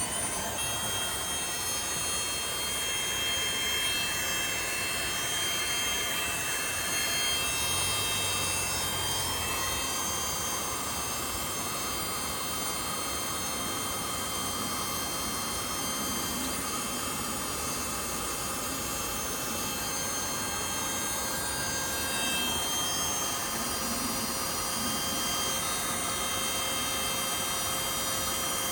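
Small electric motor-driven fan or blower running steadily, a constant whirring with high whining tones.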